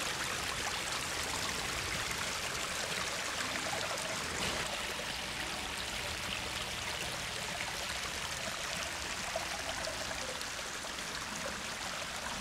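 Pump-fed water running steadily down a rockery-stone garden pond cascade, splashing and trickling over the rocks and cobbles into the pond.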